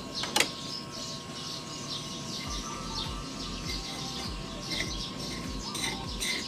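Small birds chirping rapidly and repeatedly. A couple of seconds in, a low, regular beat of background music comes in under them.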